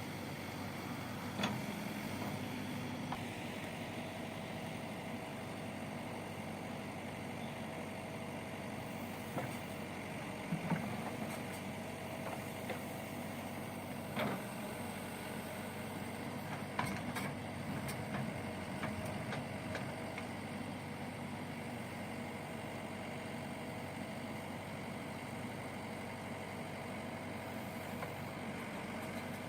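JCB backhoe loader's diesel engine running steadily, with a few short sharp knocks scattered through it.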